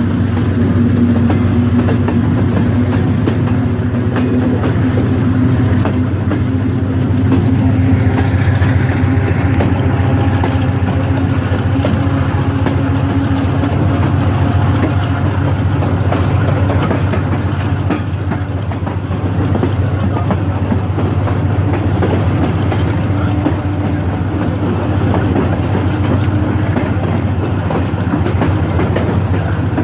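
Passenger train running along the track with a steady deep rumble and the repeated clicking of wheels over rail joints.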